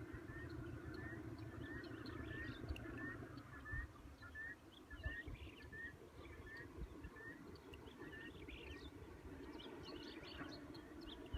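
Birds chirping: one repeats a short rising note about twice a second while others chirp sporadically, over a low, uneven rumble.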